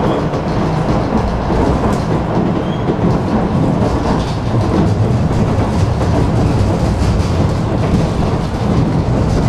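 Tram running along its line: a deep, steady rumble of wheels on rails and running gear.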